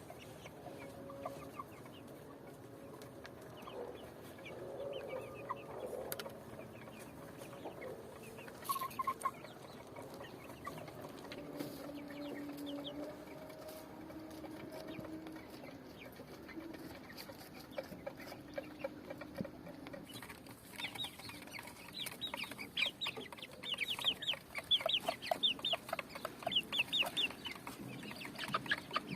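Chickens clucking, with low drawn-out calls through most of it; about two-thirds of the way in, a dense flurry of quick, high-pitched calls takes over and is the loudest part.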